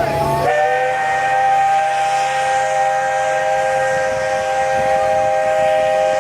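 Steam whistle blowing one long, steady chord of several notes at once, starting about half a second in, over a hiss of steam.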